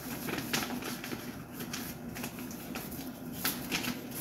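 Scattered light clicks and rustling, with a faint steady hum underneath.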